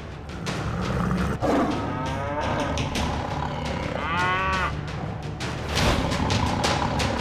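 A tiger roaring twice, the second call sweeping up and then down in pitch, over tense background music with sharp percussive hits near the end.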